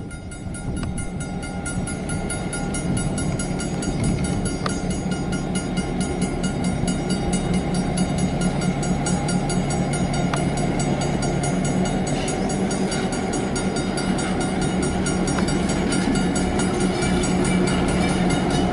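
Diesel locomotive running as a slow train approaches, with a steady low engine drone and a thin high whine, growing gradually louder. A few light clicks are heard along the way.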